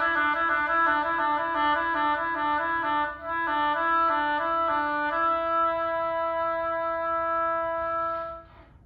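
A solo woodwind plays a run of quick notes, then holds one long closing note that stops about eight and a half seconds in.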